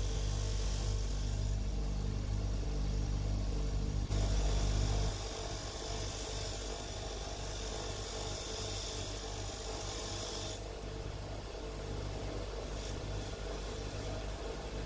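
Bench grinder fitted with a wire wheel running, brushing rust and scale off cast-iron vise parts: a steady motor hum under a hiss of wire on metal. The hiss grows louder about four seconds in and eases off again after about ten seconds as the part is pressed against and eased off the wheel.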